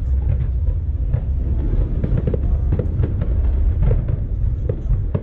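Fireworks display: a run of pops and crackles from bursting shells over a steady low rumble.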